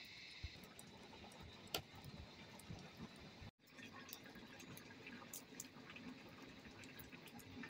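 Near silence: faint background with scattered small clicks. A high, steady chirring stops about half a second in.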